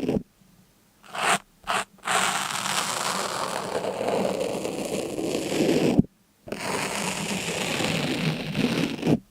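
Continuous scraping, rasping noise, broken by sudden short silences just after the start and about six seconds in, with two brief strokes between.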